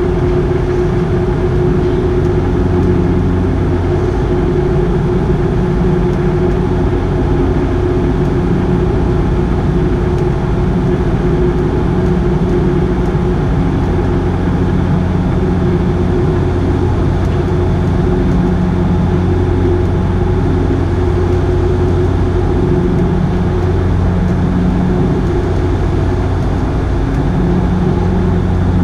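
Cabin noise of a Bombardier Q400's Pratt & Whitney PW150A turboprop engines and six-bladed propellers in the climb, heard from a seat beside the engine: a loud, even drone with a steady low propeller hum.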